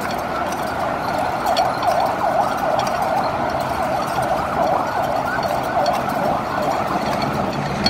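An emergency vehicle siren yelping, its pitch sweeping up and down several times a second, over steady street traffic noise.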